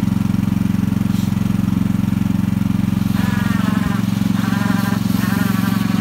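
Wheel Horse garden tractor's engine running steadily under load while it pulls a mouldboard plough through garden soil.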